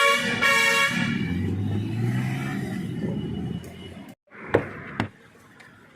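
Piaggio Ape auto rickshaw's horn giving a short honk just after the start, followed by its engine running for about three seconds with a slight rise in pitch. After a sudden cut to silence come two sharp knocks about half a second apart.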